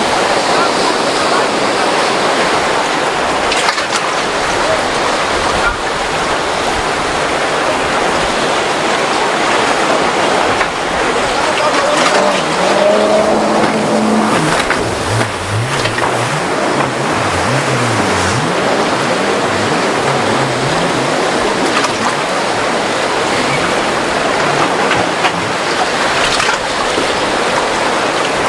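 Rough, churning inlet water: a loud, steady rushing of waves and current.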